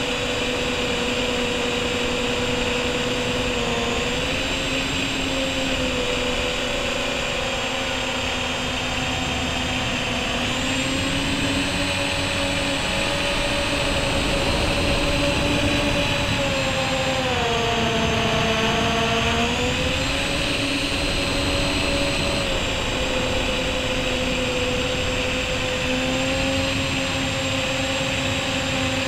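MJX Bugs 3 quadcopter's four motors and propellers whining in flight on a 2S battery, heard from the camera mounted under the drone, over a steady rushing hiss. The whine holds a steady pitch, dips briefly a few seconds in, and dips lower for a couple of seconds about two-thirds of the way through before climbing back as the throttle is eased and opened again.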